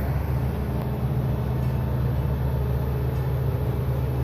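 Large diesel engine, most likely the crane truck's, running steadily at a constant speed with a low, even rumble.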